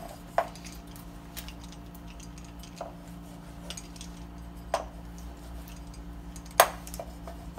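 Rolling pizza cutter working through a baked pizza crust on a plastic cutting board, with scattered clicks and light knocks of the cutter and board, the sharpest one about two-thirds of the way through.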